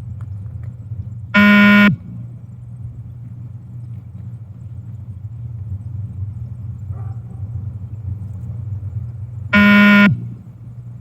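Two electronic beeps from a beep-test (multi-stage shuttle run) recording, each about half a second long and about eight seconds apart, over a steady low hum. Each beep marks the moment the runner should reach the next end line.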